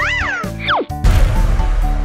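Cartoon sound effects: a whistle tone that rises and falls, then a quick falling whistle glide. About a second in, children's music with a steady beat starts.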